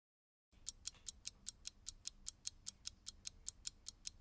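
Clock ticking sound effect: fast, even ticks, about five a second, starting about half a second in.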